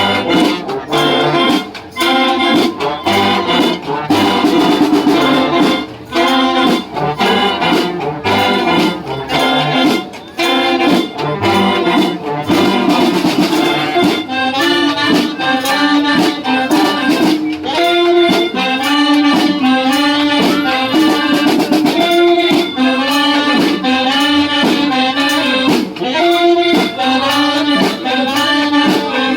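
A brass band plays a tune with a steady drum beat, its trumpets, trombones and saxophones carrying the melody.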